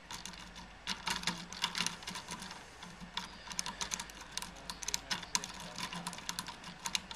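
Lock-picking rake scrubbed quickly in and out of a pin tumbler lock: a fast, irregular run of small metallic clicks as the rake bounces the pins.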